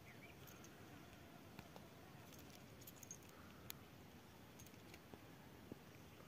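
Near silence with a few faint clicks from a small brass padlock and its keys being handled as a key is fitted into the lock.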